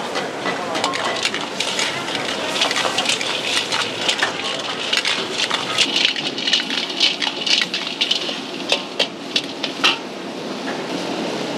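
Sauce sizzling and bubbling in a hot wok while a metal spatula stirs and tosses sea snails in their shells. A run of sharp clicks and scrapes starts about two seconds in and stops about ten seconds in, leaving the steady sizzle.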